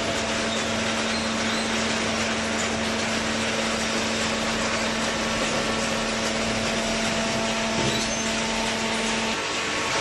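Hydraulic cardboard baler plant running: steady mechanical noise with a constant hum that cuts out about nine seconds in.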